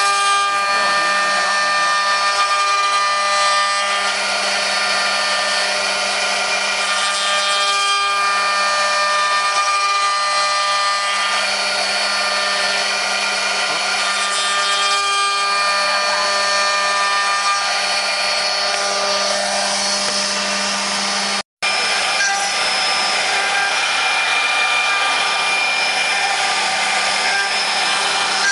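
Multi-spindle 4-axis CNC wood router running, its spindle motors giving a steady whine over the noise of the bits cutting into wooden blanks turning on the rotary axes. The sound cuts out for a moment about 21 seconds in, then carries on.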